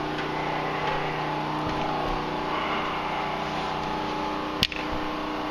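Steady mechanical hum of a running machine with several fixed tones, and one sharp click about four and a half seconds in.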